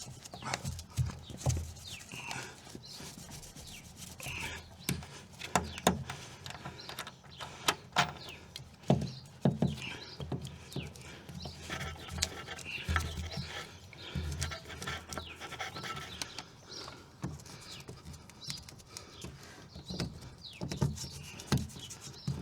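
Hands pressing and rubbing a malleable sound-deadening sheet into place against the car's bodywork, with irregular rubbing, crinkling and sharp little knocks and taps.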